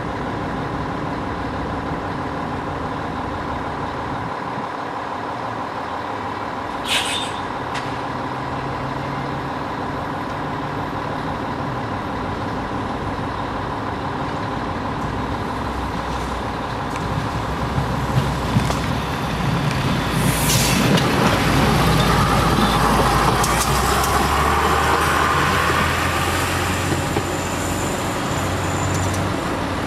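Mariazellerbahn narrow-gauge electric train running, a steady rumble of wheels on rail. The noise grows louder for several seconds past the middle, with a brief hiss about twenty seconds in.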